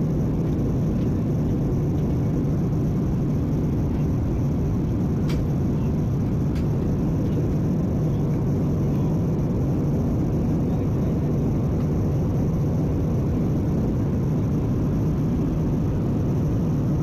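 Steady cabin noise of a jet airliner in cruise: an even, low rumble of engines and airflow heard from a window seat. Two faint clicks come about five seconds in and again a second later.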